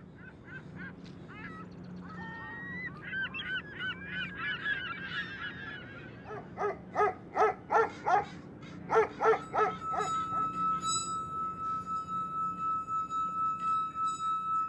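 Small birds chirping, then two bouts of loud waterfowl honking, several calls in quick succession. In the last third a steady high tone comes in and holds.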